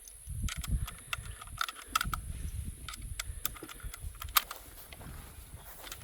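A string of light clicks and small rattles from a Mosin-Nagant bolt-action rifle being handled, over a low rumble. The strongest clicks come about two seconds in and about four and a half seconds in; no shot is fired.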